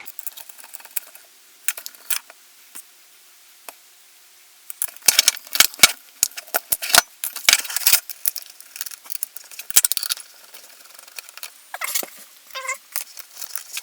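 Small tools and parts of an airsoft MP5 being handled during disassembly: scattered sharp clicks at first, then a busy run of clicks, taps and light rattles in the middle, and a few more near the end.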